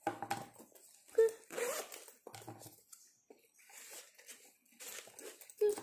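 A fabric backpack being handled and unzipped: irregular rustling and zipper scraping, with a short squeak about a second in.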